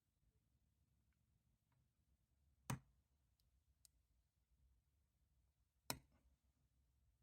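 A lock pick and tension wrench working the pins of a Vachette pin-tumbler padlock: two sharp metallic clicks about three seconds apart, with a couple of faint ticks between, in near silence.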